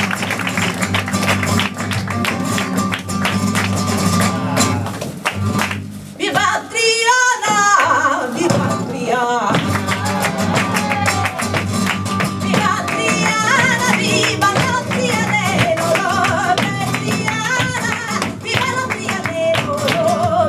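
Live Sevillanas flamenco music: a flamenco guitar strumming, with sharp percussive clicks running through it, and a solo singer coming in about six seconds in.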